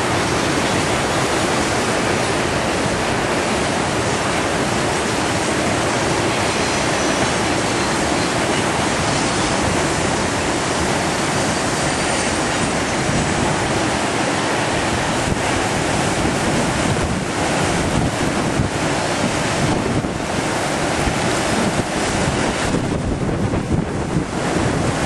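Whitewater rapids on a large river rushing steadily and loudly, with wind buffeting the microphone. The rush thins briefly near the end.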